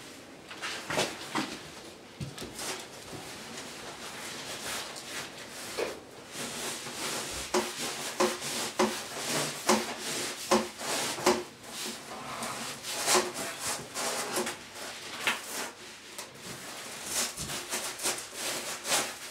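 Closed-cell foam pipe insulation being pushed down over a plastic water pipe and into a plastic duct, rubbing and scraping against them in a series of short, irregular pushes.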